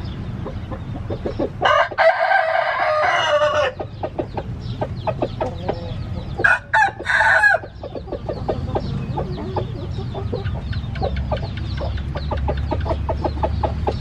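Gamecock roosters: one crows a long crow about two seconds in, and a shorter, broken crow follows near the middle, with clucking and quick ticking between.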